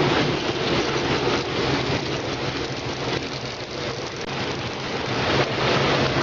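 Brush roller vegetable washing machine running: a steady motor hum under a dense hiss of water.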